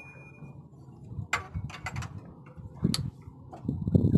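Hand tools clicking and tapping on the metal body of a Bosch inline diesel injection pump clamped in a vise: a few sharp separate clicks, then a denser run of duller knocks near the end.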